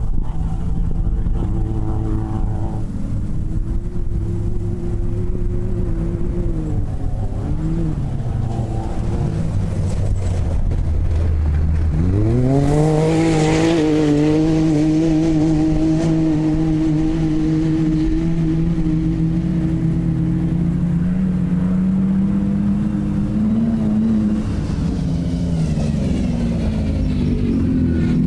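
Off-road race buggy engine running hard, its pitch wavering low at first, then climbing sharply about twelve seconds in and holding high, with a short hiss around the climb. The pitch shifts again near the end.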